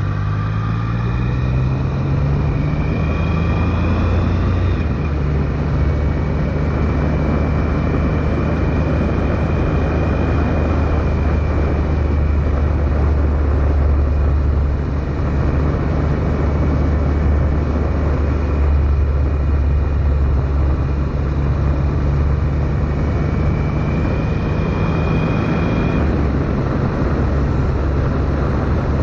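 Triumph Sprint GT motorcycle's three-cylinder engine under way at road speed, its revs climbing over the first few seconds and dropping with an upshift, then holding steady. Heavy wind and road noise runs throughout.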